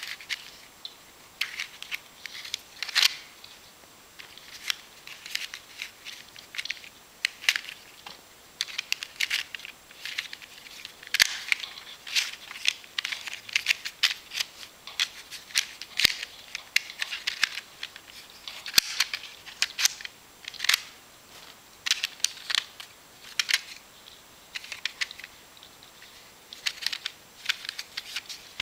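Handling noise from a phone-shaped magic wallet toy: its stiff green panels click and tap against each other and the ribbons rustle as it is taken apart and put back together, in an irregular run of short sharp clicks.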